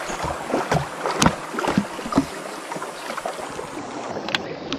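Water sloshing around a small boat, with a few sharp clicks and knocks from handling a baitcasting rod and reel. The crispest click is about a second in, and another comes near the end.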